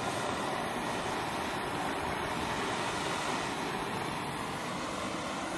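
Handheld butane blowtorch burning with a steady, continuous rushing hiss while it is used to singe a cow's leg.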